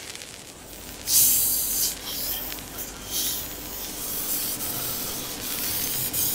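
Kitchen knife being sharpened on a whetstone: the blade scrapes across the stone in a series of strokes, the first and loudest about a second in.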